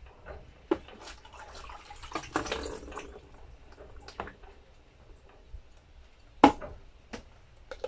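Liquid collected by a DampRid moisture-absorber tub poured into a plastic bucket: a splashing trickle for about a second, two seconds in, with light clicks of the plastic tub. About six and a half seconds in comes a single sharp knock, the loudest sound, as the tub strikes the bucket rim.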